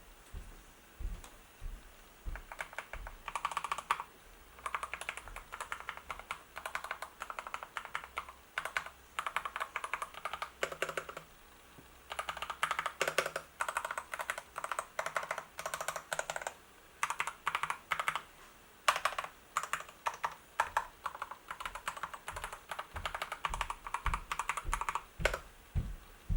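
Typing on a Dustsilver D84 mechanical keyboard with red (linear) switches: fast runs of keystroke clicks in bursts, with short pauses between them.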